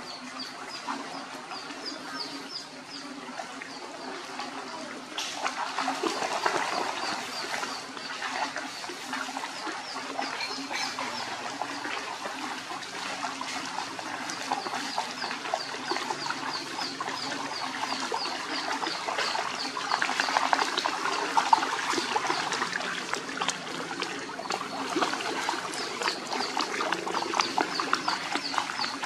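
Dogs wading and splashing through shallow muddy rainwater, the splashing louder from about five seconds in and again around twenty seconds. A high, quick chirping repeats steadily behind it.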